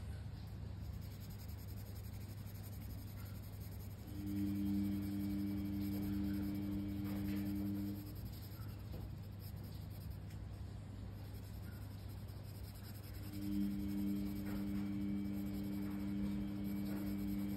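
Coloured pencil scratching on paper as the ear of a colouring-book drawing is shaded in black, over a steady low hum. A louder low steady tone comes in twice, each time for about four seconds.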